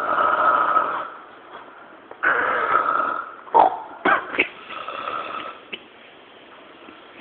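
Snoring: two long loud snores about two seconds apart, then a few short sharp sounds and a softer snore.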